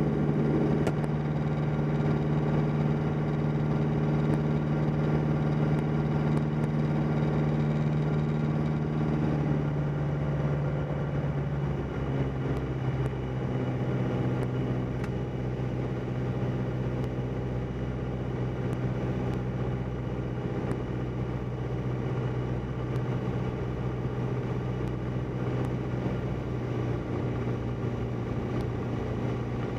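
Single-engine light aircraft's piston engine and propeller droning steadily in the cockpit; about ten to twelve seconds in the engine note drops lower and slightly quieter as power comes back on the approach, then holds steady.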